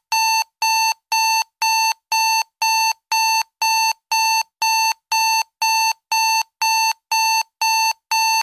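Electronic timer alarm beeping at the end of a countdown: identical short, buzzy beeps repeating evenly, about two a second.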